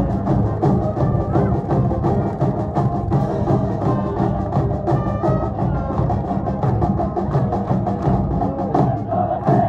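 A baseball cheering section's band playing a cheer tune, drums beating a steady rhythm under held melody notes.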